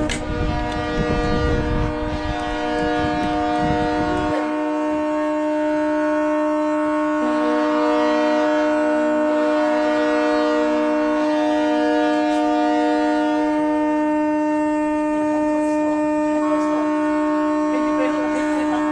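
Ships' and boats' horns sounding together in long, steady blasts for the salute: one low horn holds its note throughout while higher-pitched horns start and stop around it. A low rumble runs under the first four seconds.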